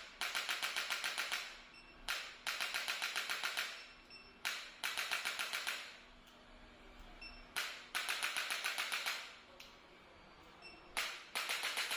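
Handheld chiropractic adjusting instrument delivering controlled high-frequency thrusts to the L3–L4 lower back: five bursts of rapid clicking, about ten a second, each just over a second long and opened by a single sharp click.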